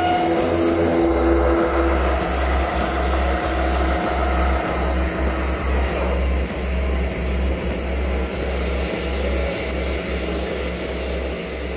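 Indexable-insert face mill cutting a steel block: a steady machining whine over a low rumble, the whine fading out partway through and the whole sound slowly dying away near the end.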